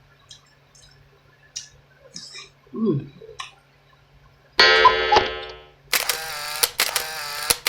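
Faint clicks of eating, shell and food being handled and chewed, over a steady low hum. About four and a half seconds in, a loud held pitched sound starts, followed by several loud, bright pitched sounds in short chunks, broken off by brief gaps.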